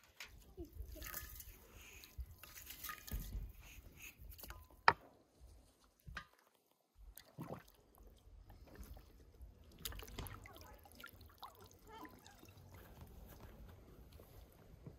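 Faint drips and small splashes of water in an enamel basin where a whole raw duck is being washed, with one sharp knock about five seconds in.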